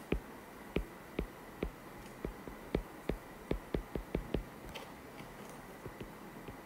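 Stylus tip tapping and clicking on a tablet's glass screen during handwriting: about a dozen light, irregular taps, thinning out after about four and a half seconds.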